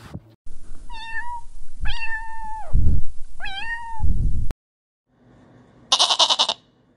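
A cat meowing three times, each meow rising and then falling in pitch, the second one longer. It cuts off abruptly, and near the end there is a short, harsh, rapidly pulsing call from another animal.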